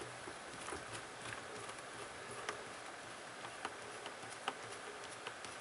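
Faint, irregular small ticks and clicks of a small screwdriver turning a screw into a laptop screen's mounting bracket.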